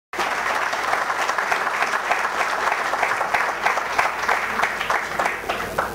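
Audience applauding: a dense patter of many hands clapping that starts suddenly and eases off slightly near the end.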